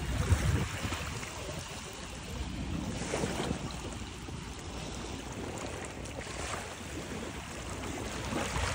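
Small sea waves lapping onto a sandy shore, each wash swelling about every three seconds, with wind rumbling on the microphone near the start.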